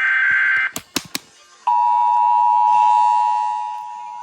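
The tail of an Emergency Alert System digital data burst, a harsh warbling two-pitch screech, cuts off just under a second in. A few sharp clicks follow, then the EAS two-tone attention signal starts and holds steady as a dissonant two-note drone, growing quieter near the end.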